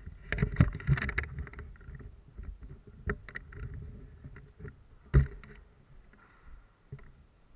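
Handling noise of a worn action camera: rubbing and clicking against the microphone, then a few sharp knocks, the loudest about five seconds in, over a low rumble that fades.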